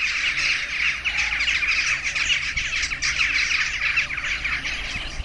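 A large flock of jackdaws calling at the roost: a dense, steady chatter of many short, overlapping calls.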